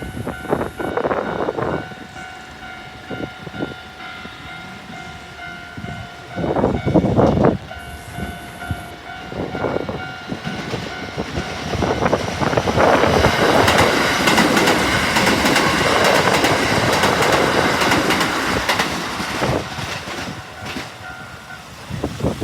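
A level-crossing warning signal sounds its repeated electronic tone, with a few loud knocks. About halfway through, a Keikyu electric train passes close by, its wheels clattering over the rail joints, then it fades away near the end.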